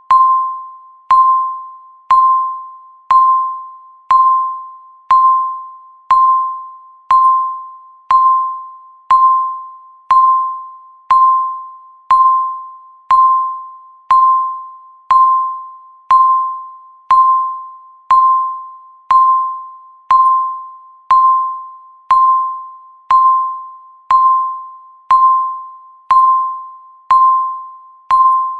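Countdown timer's tick sound: a short ringing ding, once every second, each starting with a click and fading quickly.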